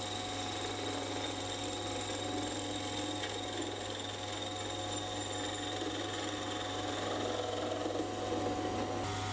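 Small metal lathe running with a steady motor hum and whine while a carbide-insert tool takes a facing cut across the end of a stainless steel bar.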